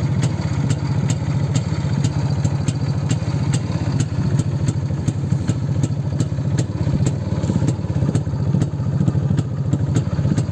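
1984 Izh Planeta-3 motorcycle's single-cylinder two-stroke engine idling steadily at a very low idle, with an even beat that neither rises nor falls.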